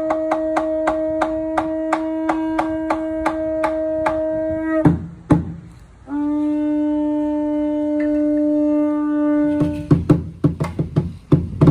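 Conch shell trumpet blown in two long steady notes, the second a little lower, while a drum is struck steadily about three times a second under the first. About ten seconds in, the note ends and quick drum and percussion hits follow.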